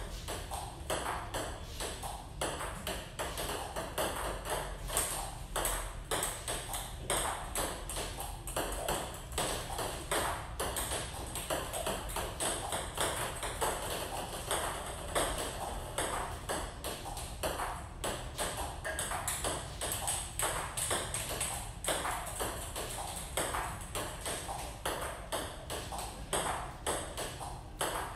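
Table tennis ball being hit back and forth in a practice rally: a continuous run of sharp, quick clicks as the ball strikes the bats and bounces on the table.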